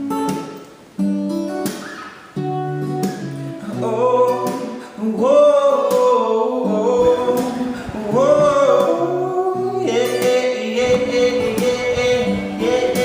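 A song: an acoustic guitar strums chords, and a voice begins singing a held melody about four seconds in. The arrangement grows fuller from about ten seconds.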